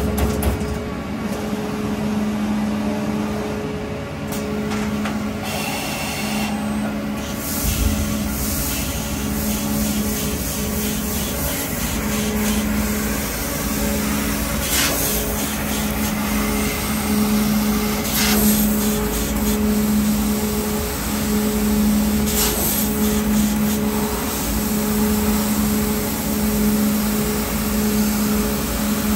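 Amada ACIES 2515 punch/laser combination machine running: a steady industrial hum with a low tone that pulses on and off regularly, about every second and a half, and a few short hisses.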